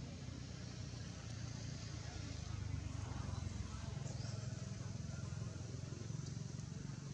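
A steady low engine rumble from a vehicle, a little louder from about a second in, with a couple of short high chirps.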